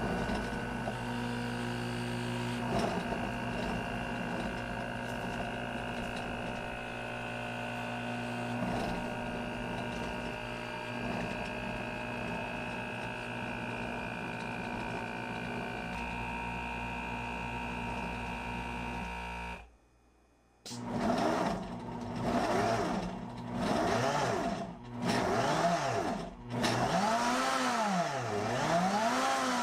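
Kuvings SV500 vacuum blender drawing the air out of its container: a steady hum with several fixed tones. This stops about twenty seconds in, and after a second's pause the blender motor starts its auto-blend program, its speed rising and falling over and over with a few brief dips.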